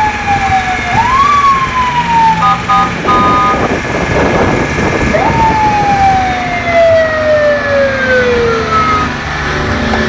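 Fire engine siren sounding: whoops that rise quickly and fall slowly, two short steady blasts, then one long falling wail, over the constant hiss of the truck's water cannon jet and wind.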